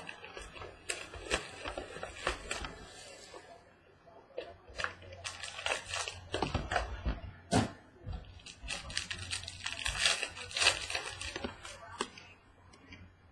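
Trading cards and plastic packaging being handled: irregular clicks, taps and crinkly rustling of card sleeves and box wrap, with two denser stretches of crinkling partway through.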